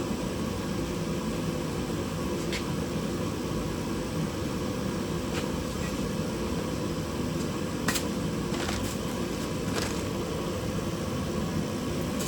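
A steady machine hum with a few light clicks and taps scattered through it.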